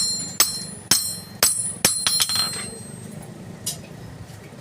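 Hammer striking steel: five sharp, ringing blows about half a second apart, then a single fainter strike about two seconds later.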